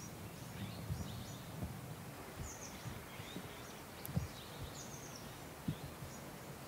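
Faint outdoor ambience: small birds chirping now and then over a low steady background rumble. A few soft knocks come through, the clearest just past the middle and again later on.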